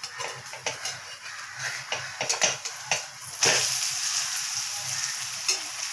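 A steel spatula scrapes and taps against a steel frying pan as an eggless gram-flour and maida omelette is worked loose and turned. About three and a half seconds in, a loud oily sizzle starts suddenly as the omelette hits the hot oil, then carries on as a steady sizzle.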